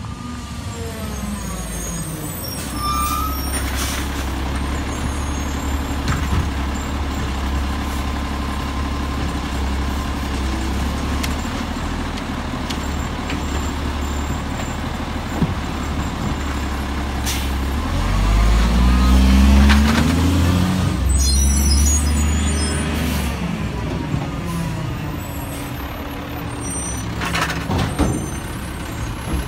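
Diesel garbage truck with an Autoreach automated side-loading arm running through a cart pickup. The engine drones steadily and revs up for several seconds past the middle as the arm works, and short air-brake hisses come a few times.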